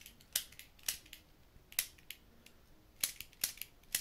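Plastic clicks of a LEGO brick toy pistol's mechanism being worked: about six sharp clicks at uneven intervals, with fainter ticks between.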